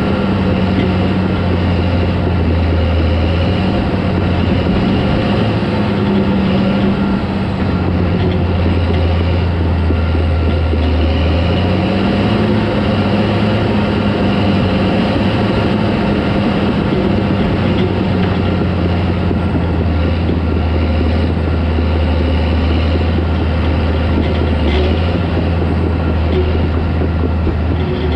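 Caterpillar D4 crawler tractor's diesel engine running steadily under work. Its note dips for a few seconds and then picks back up a little before the middle.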